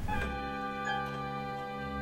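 Background music begins with a sustained chord held steadily.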